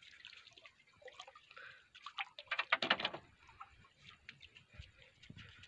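Lake water splashing at a rocky shoreline, with a quick flurry of splashes about two to three seconds in.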